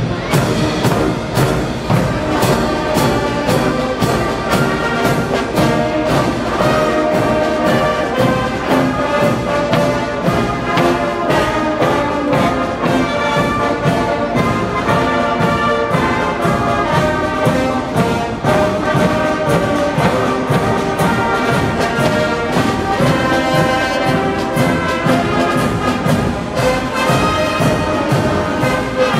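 Marching brass band playing a march: trumpets, trombones and sousaphones over a steady beat of bass drums and cymbals.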